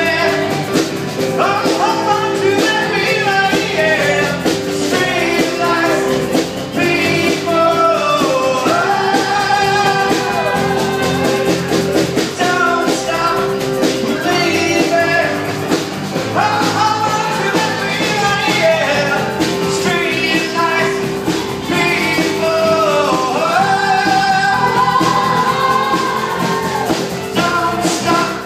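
Live band playing rock music, with fiddle, guitar and keyboard and a singer.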